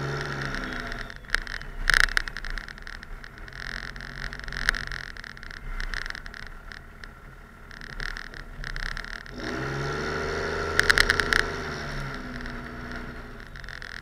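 Cummins inline-six turbodiesel in a Ram 2500 pickup, working under load as the plow pushes heavy snow. It revs up at the start and again about ten seconds in, then eases off, with short bursts of crackling noise that are loudest about eleven seconds in.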